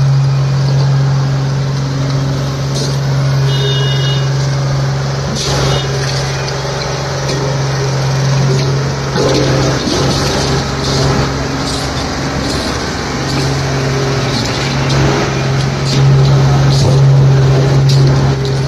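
Road roller's diesel engine running steadily at idle, a constant low drone, with a few scattered knocks.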